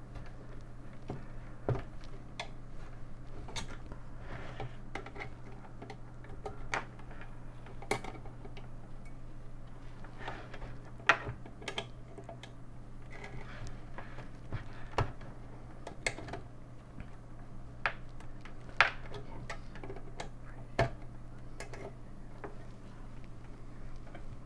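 Irregular metallic clicks and knocks as the sheet-metal case of an AT computer power supply is handled and its stuck circuit board is worked loose, over a steady low hum.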